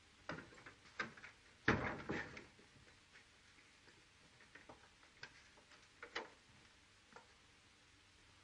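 Scuffle of two people grappling against wooden boards: irregular knocks and thumps of bodies and feet, loudest in a cluster about two seconds in, then scattered lighter knocks.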